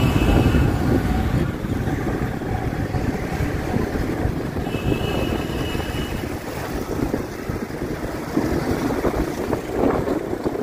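Wind rushing over the microphone of a moving two-wheeler, mixed with engine and road noise from the surrounding traffic.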